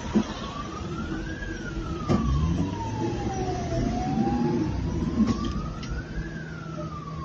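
A van's emergency siren on a slow wail, rising for about a second and a half and falling for about two seconds, twice over, over steady road and engine noise. A few sharp knocks are heard, the first just at the start.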